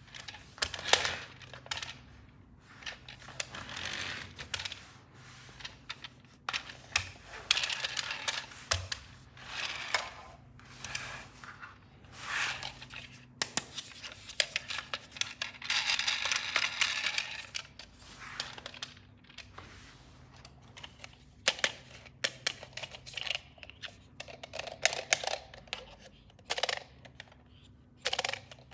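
Hard plastic toy pieces clicking and tapping as they are handled and unpacked, with packaging rustling in between; a longer rustle about halfway through.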